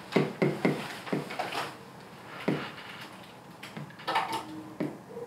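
Irregular short taps and knocks from a pen or marker writing and drawing a diagram, about a dozen in all, in a small room.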